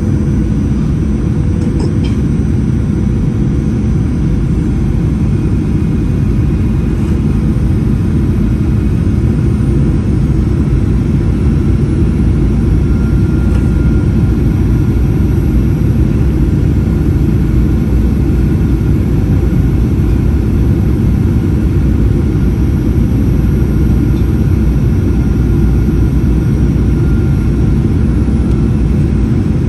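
Steady roar of engine and airflow noise inside the cabin of a Boeing 737-800 in flight, heard from a window seat, with a faint steady hum running through it.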